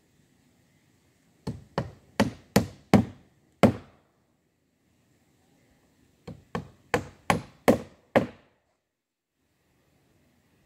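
Hammer driving nails into wood: two runs of about six sharp blows, a few seconds apart.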